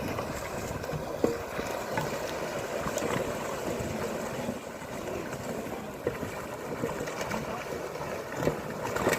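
Steady outdoor water noise, like water moving and sloshing around a pond, with a few short knocks.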